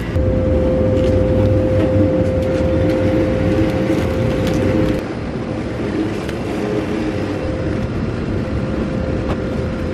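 Supermarket ambience: a steady low hum with a held tone, typical of refrigerated display cases, that drops in level about halfway through.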